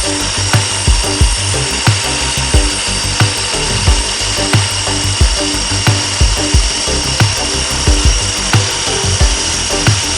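Table saw running with a steady whine as it rips wood, under background music with a steady beat of about three thumps a second.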